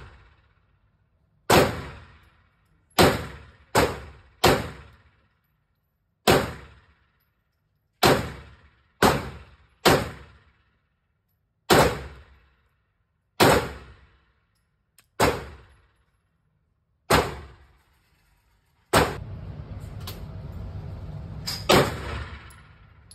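Canik TTI Combat 9mm pistol fired in slow single shots, about fourteen reports one to two seconds apart, each ringing out in an indoor range's echo. In the last few seconds a steady rushing noise rises under the final shots. The pistol is repeatedly failing to return to battery.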